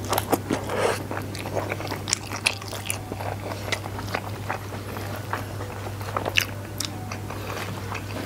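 Close-miked mouth sounds of a man chewing a handful of rice with sambal petai and fried egg: many short wet clicks and smacks, with some crunching, over a steady low hum.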